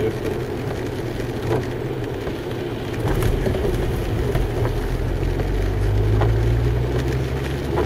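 Car engine and tyre noise heard from inside the cabin while driving on a wet road, a steady low drone that grows louder about three seconds in.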